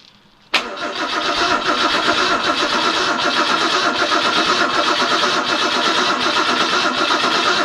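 Ford 200 inline-six cranked by its starter motor, starting suddenly about half a second in and turning over at a steady, even rhythm without catching. The owner traced the failure to fire to too little power reaching the ignition coil.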